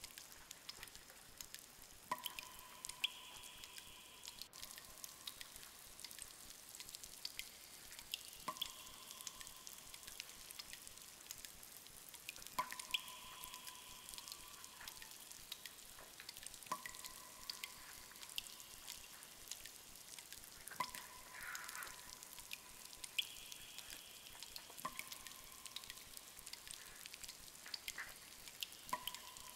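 Water dripping in a cave: single drops plink about every four seconds, each leaving a short ringing tone, over a faint hiss with small scattered ticks.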